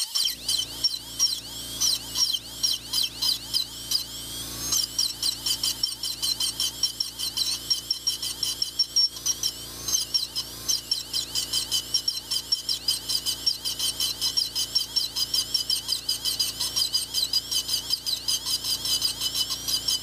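High-speed straight-shaft dental drill, spinning a carbide bur at around 400,000 RPM, engraving stainless steel. Its high whine dips in pitch and swells several times a second as the bur bites into the metal in short strokes.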